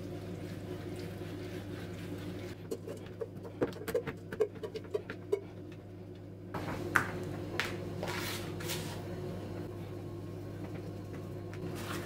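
Food handling on a baking tray: a quick run of light clicks and taps a few seconds in as peeled potatoes are set around a whole raw chicken, then a few more taps and a short soft shaking hiss from dried herbs being sprinkled, over a steady low hum.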